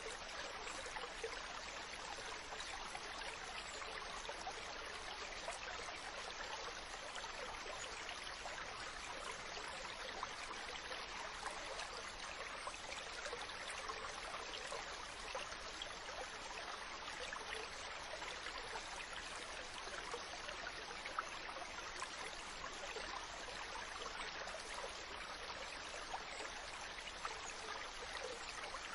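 Small stream flowing steadily: a continuous, even babble of water with fine trickling detail.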